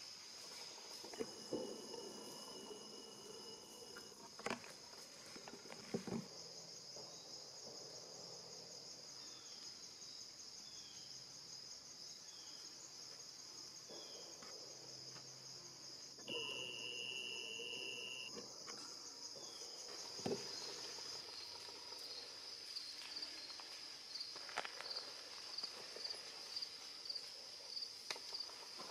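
Crickets trilling in a steady high-pitched chorus, with a few faint clicks or snaps. A steady high tone is held for about two seconds twice, once near the start and once past the middle.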